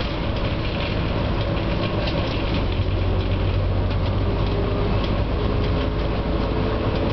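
Inside a NABI 416 transit bus under way: steady diesel engine drone and road noise. A faint steady tone joins about halfway through.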